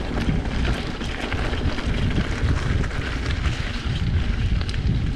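Wind buffeting the microphone of a camera on a moving mountain bike, over the crunch of tyres on a gravel track and many small rattling clicks from the bike.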